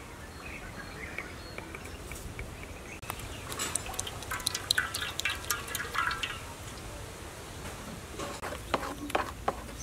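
Cooking oil poured from a plastic jug into a wok, with gurgling and splashing that thicken in the middle seconds and come again near the end.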